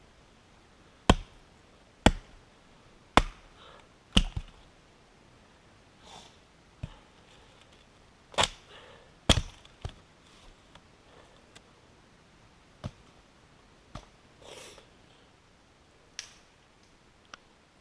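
Axe chopping wood: four sharp strikes about a second apart, then two more a few seconds later and a few fainter knocks.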